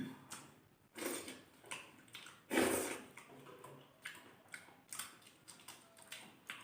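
People eating: chewing and mouth smacks with small irregular clicks, and two louder brief noisy sounds, one about a second in and one near the middle.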